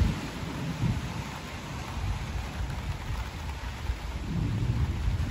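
Rain falling in a thunderstorm, with low thunder rumbling. One rumble dies away about a second in, and another builds near the end.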